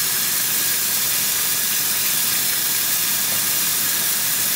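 Water from a kitchen faucet pouring into a bowl that is already full, overflowing into a stainless steel sink: steady splashing without a break.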